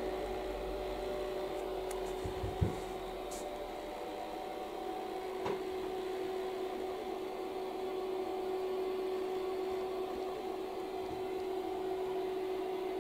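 HO-gauge model train running on sectional track: a steady motor hum over the rumble of wheels on the rails. There is a sharp click about two and a half seconds in and a smaller one a few seconds later.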